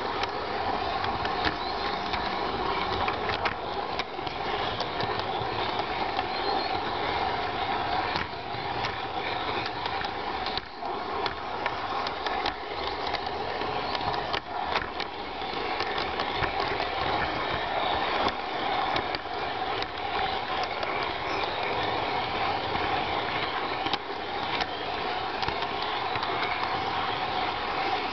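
LGB garden-scale model train running along its track, heard from on board: a steady whir from its electric motor and gearing, with frequent irregular clicks from the wheels on the rails.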